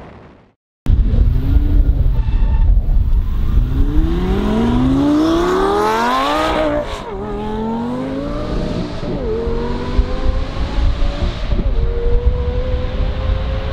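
Twin-turbo Lamborghini Gallardo Superleggera's V10 accelerating hard in a run down the strip, starting suddenly about a second in. The engine note climbs in one long pull, then drops and climbs again with upshifts at about seven, nine and twelve seconds, over a heavy low rumble.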